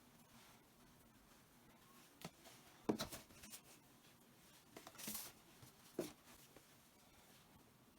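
Quiet handling sounds of socks being folded and put into a drawer: a few light knocks and brief fabric rustles, scattered from about two seconds in to about six seconds in.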